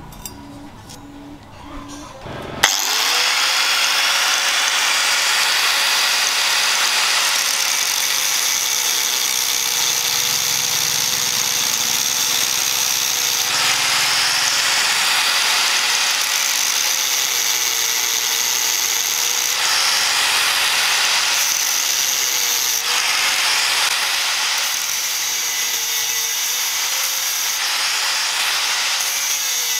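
Angle grinder with a thin cutting disc cutting into a steel motorcycle disc brake rotor. It starts suddenly about three seconds in, with a steady high motor whine over a loud hissing grind. The whine's pitch dips now and then, and the hiss grows brighter in stretches.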